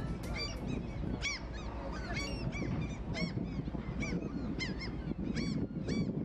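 A flock of birds calling: many short arched calls, two or three a second, over a steady low noise.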